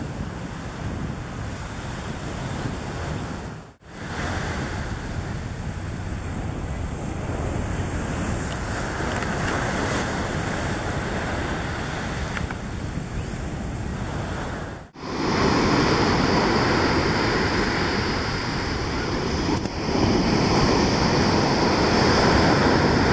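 Waves breaking on the beach, with wind noise on the microphone. The sound drops out briefly twice, and the surf is louder after the second dropout.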